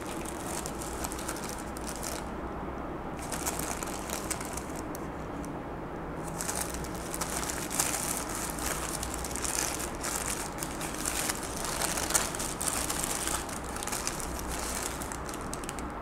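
Paper sandwich wrapper crinkling and rustling as hands handle it and peel it open. The rustling comes in spells with short pauses about two and five seconds in, then runs almost without a break through the second half.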